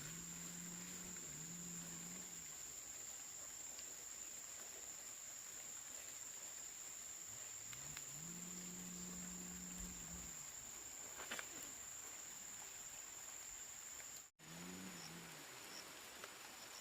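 Steady high-pitched insect drone, typical of crickets in the forest, with a low pitched hum that swells, holds and fades three times. The sound drops out for an instant near the end.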